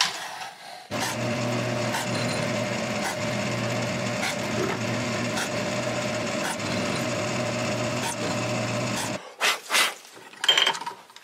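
Drill motor on a drilling machine running steadily for about eight seconds as its bit bores into plywood, then stopping. A few short knocks of clamps being handled follow near the end.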